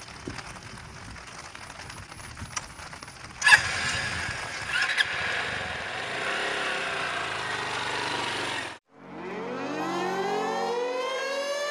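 Outdoor road noise with a sudden thump about three and a half seconds in. After a brief dropout near the end, a slowly rising, siren-like wail plays over steady background tones.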